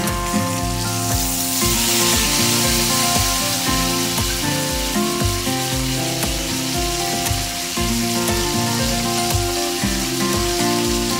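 Beaten eggs sizzling and frying in hot olive oil in a nonstick frying pan on high heat, stirred with a spatula to scramble them. The sizzle swells over the first couple of seconds as the eggs hit the oil, then holds steady.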